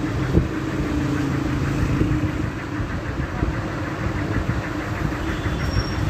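Steady low mechanical rumble, like an idling engine, with a few small clicks, one about half a second in.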